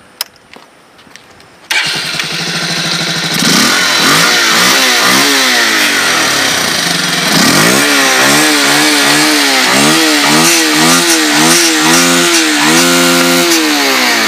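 Bajaj Pulsar 180F single-cylinder engine, running with the intake snorkel cap on its airbox removed so air goes straight in. It cuts in loudly about two seconds in and is revved: one long rev, then a run of quick throttle blips about two a second that settle back near the end.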